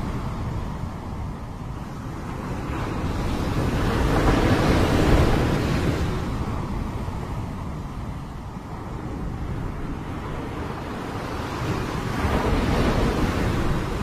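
Small waves breaking and washing up a pebble beach, a continuous surf hiss that swells twice, about five seconds in and again near the end, as each wave runs up the shingle.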